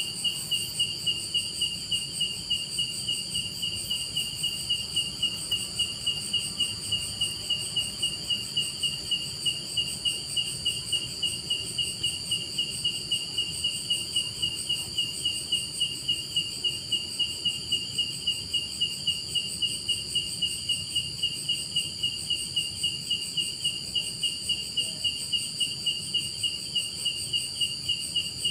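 An insect singing a continuous chirp, a high tone pulsing in an even, rapid rhythm that never stops.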